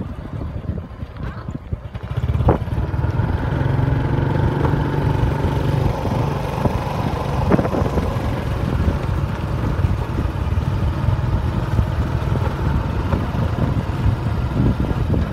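Wind rumbling on the microphone of a phone carried on a moving bicycle. It picks up and stays steady from about two seconds in.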